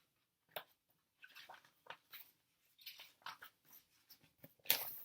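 Faint, scattered rustles and soft brushes of paper as a softcover picture book is opened and its pages handled, with a louder swish near the end.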